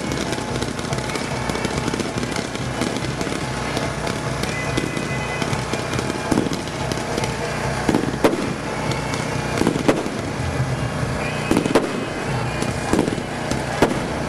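Aerial fireworks going off: a continuous crackle and hiss, with about six sharp bangs spread through the second half.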